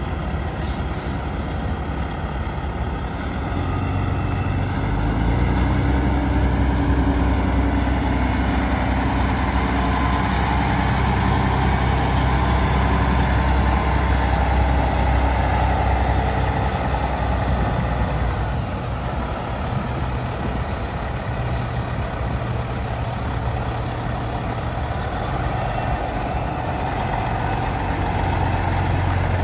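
Caterpillar C15 six-cylinder diesel of a semi truck running. It climbs from idle to a higher, steady speed a few seconds in, holds there for over ten seconds, drops back toward idle, then picks up again near the end.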